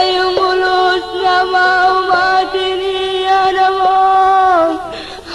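Sumatran folk music from an old cassette recording: a single melody held in long, slightly wavering notes with small turns between them. It breaks off briefly near the end.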